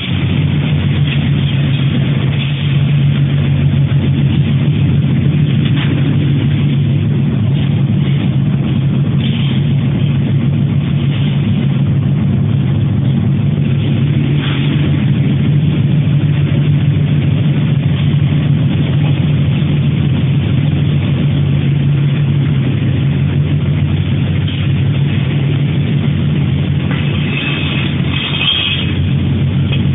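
Rotary sawdust drying machine running: a steady, loud low machine hum, with faint scattered rattles and a brief higher clatter near the end.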